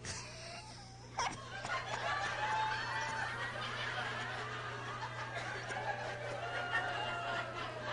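A congregation laughing and murmuring, many voices at once, swelling up about a second in and carrying on.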